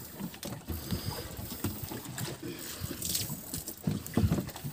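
Wind and water noise on a small fishing boat at sea, with irregular low knocks from movement on board, the loudest near the end.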